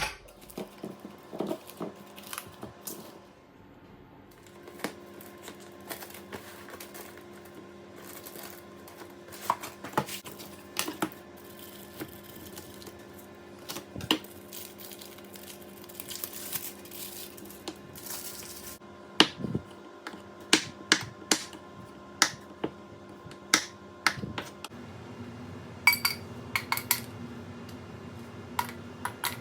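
Kitchen clatter: dishes and utensils clinking and knocking with sharp irregular taps, a run of louder clinks past the middle, over a faint steady hum.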